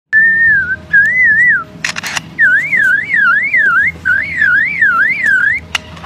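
Superb lyrebird mimicking a car alarm. It starts with a held whistle and a short warble, then gives runs of rapid rising-and-falling siren sweeps, two to three a second. A quick cluster of sharp cracks comes just before two seconds in.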